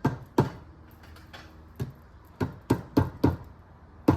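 A hammer knocking on the stuck cylinder of a 2006 Yamaha YZ250 two-stroke engine to break it loose from the crankcase. There are about eight sharp strikes, irregularly spaced, with a short gap before the middle and a quicker run of four after it.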